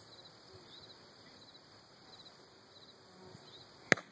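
Insects chirping faintly in short repeated trills, then a single sharp shotgun shot near the end.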